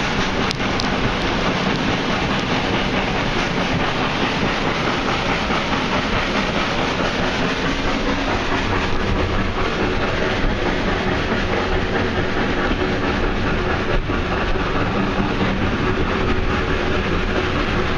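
Passenger train running along the track, heard from the carriage window as a steady rumble and clatter of wheels on rails.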